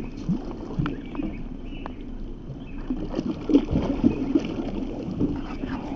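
Lake water splashing and sloshing beside a small boat as a fish held in the water is released, with the loudest splashes about three and a half to four seconds in as it swims off.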